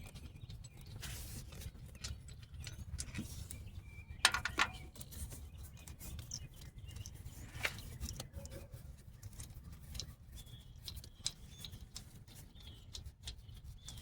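Scattered metallic clicks and clinks of hand tools working on the car, with one loud ringing clank about four seconds in, over a steady low rumble; birds chirp faintly.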